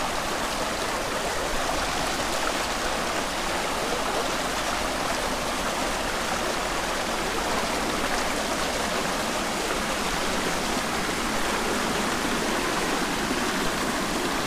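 A small mountain stream rushing steadily down a narrow rocky channel.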